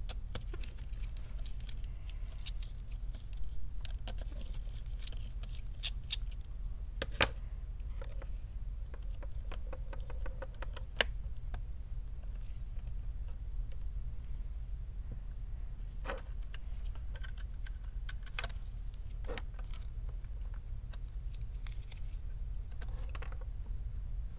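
Light clicks, taps and small metallic rattles of a precision screwdriver and small parts against a laptop's frame during disassembly, a few louder clicks standing out, over a steady low hum.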